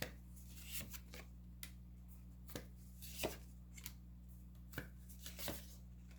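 Tarot cards being handled, shuffled and laid down on a table: faint scattered taps and soft swishes, about eight sharp clicks in all.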